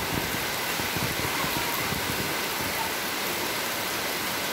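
Heavy rain falling steadily on roofs and wet paving, a continuous even hiss.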